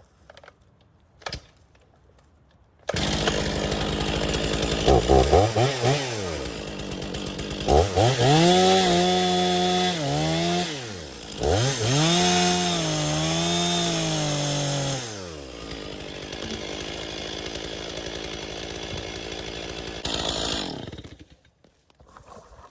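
A Stihl chainsaw starts up a few seconds in and revs to full throttle twice as it cuts through a log, then drops back to idle, revs once more, and is shut off near the end.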